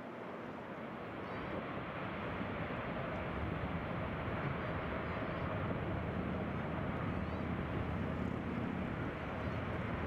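Jet airliner's engines rumbling, growing louder over the first three seconds and then holding steady.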